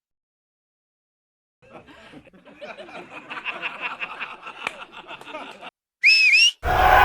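A loud, short whistle that dips and then rises in pitch, about six seconds in. Before it comes a few seconds of busy, chattering, clicking sound, and a sudden loud noisy sound breaks in right at the end.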